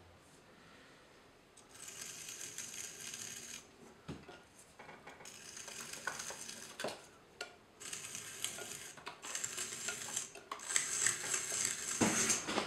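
A loop trimming tool scraping and shaving clay from the foot of an upside-down bowl on a potter's wheel. The rasping comes in several stretches of a second or more, with small clicks between them, and is loudest near the end.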